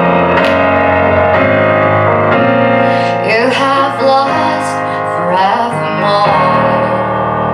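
A pop song: a woman singing a sliding melody over piano and keyboard accompaniment.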